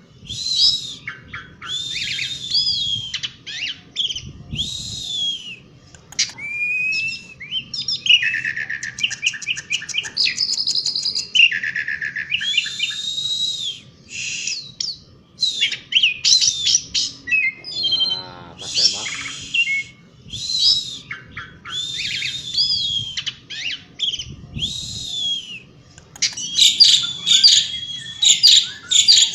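Asian pied starling (jalak suren) singing continuously in a varied run of harsh, grating notes and clear whistled glides. A rapid rattling trill comes about a third of the way in, and a dense burst of loud phrases comes near the end.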